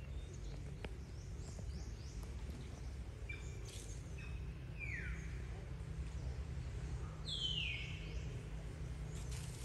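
Birds calling: a few short high chirps, then two clear whistled calls that each slide downward in pitch, about two and a half seconds apart, over a steady low rumble.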